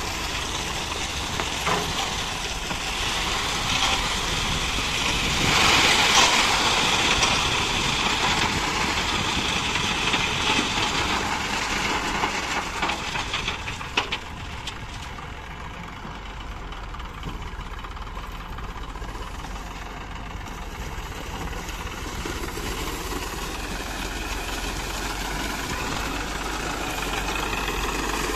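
Eicher 380 tractor's diesel engine running steadily, with a louder rushing noise over it for several seconds in the first half and a sharp click about halfway through.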